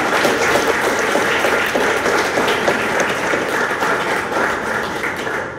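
Audience applauding: dense, steady clapping from many hands that begins to ease off near the end.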